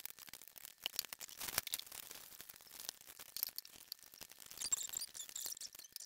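Bacon frying in a nonstick pan: a steady fine sizzle with irregular small crackles and pops. Near the end a spatula scrapes against the pan as the strips are lifted out.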